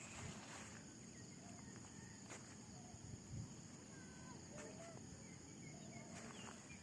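Faint outdoor ambience: a steady high-pitched insect drone, with scattered faint bird chirps and a few soft ticks.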